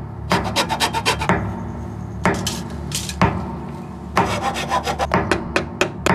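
Rasping, scraping strokes in quick bursts of sharp clicks over a low steady drone.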